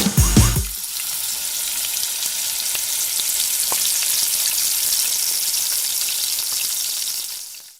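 A short burst of music ends less than a second in, giving way to a steady sizzle of food frying, which fades out near the end.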